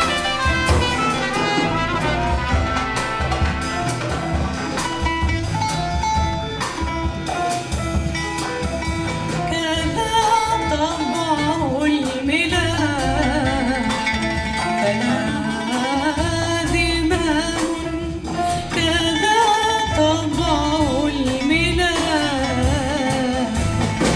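Live big band music arranged from a traditional Syrian song: a band chord bed with drums and bass, an oud playing, and from about halfway through a woman singing a long, ornamented melody line with vibrato.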